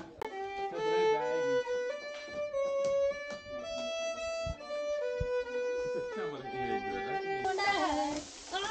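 A violin played solo: a slow melody of held notes stepping from one pitch to the next. Near the end the violin gives way to voices over a steady hiss.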